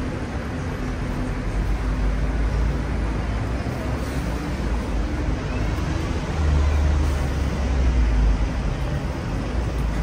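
City street traffic: a steady low rumble of passing vehicles that swells about six seconds in.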